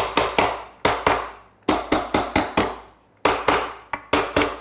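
Soft-faced mallet repeatedly striking the wooden top of a stool, driving it down over glued through-tenons. The blows are sharp and come in quick runs of four to six, with short pauses between runs.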